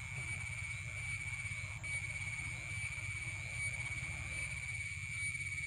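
Steady insect chorus: a constant high-pitched drone that does not change, over a steady low hum, with a couple of faint ticks.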